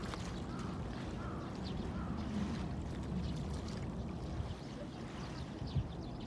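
Outdoor nature ambience: a steady low rush, with a few faint short chirps above it.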